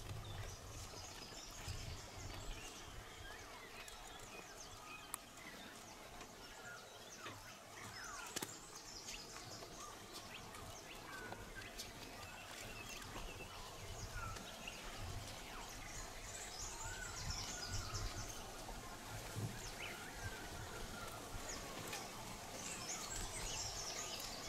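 Outdoor ambience of an African forest clearing: scattered bird chirps and calls, with bursts of high chirping that come back every several seconds, over a low steady rumble.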